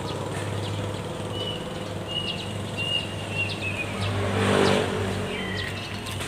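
Small birds chirping and giving short high whistles, over the steady hum of a motor vehicle engine that swells and fades again about four and a half seconds in, as if passing by.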